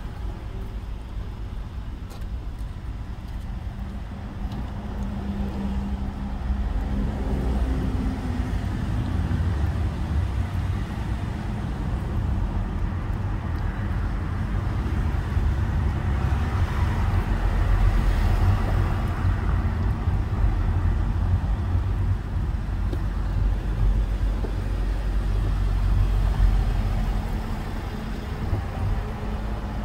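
Inside a taxi's cabin: steady low road and engine rumble as the car drives along a city street, growing louder about a third of the way in.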